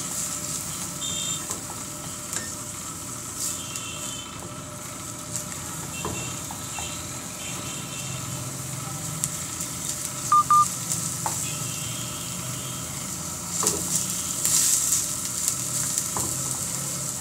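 Chopped onions sizzling steadily in hot ghee in a kadhai, being fried until translucent, while a wooden spatula stirs and scrapes them around the pan. Two short loud beeps sound about ten seconds in.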